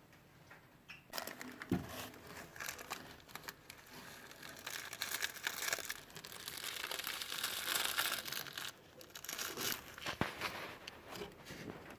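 Rustling and crinkling with many small clicks and taps, densest from about five to nine seconds in, with a single sharp knock near the end.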